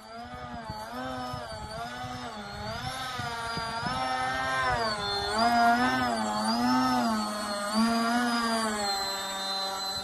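RC model plane's motor and propeller running, the whine wavering up and down in pitch about once a second, then holding a steady pitch near the end.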